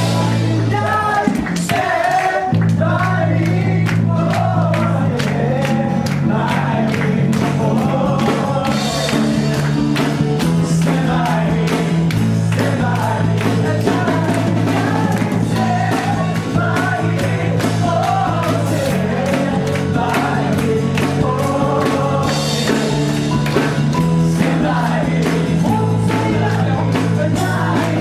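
Live band music: a singer on a microphone with acoustic guitar, held low bass notes and a steady beat.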